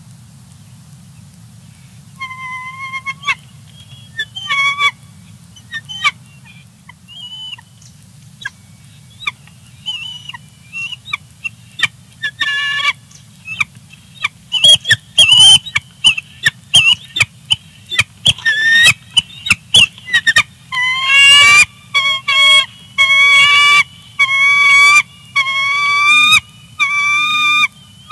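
Bald eagle squee calls: thin, high, squealing calls, scattered at first and then repeated about once a second and loud from about two-thirds of the way through.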